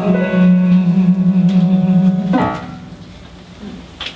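A small live band of violin and bass guitar holds the song's final chord, which cuts off about two seconds in and rings away. Applause starts at the very end.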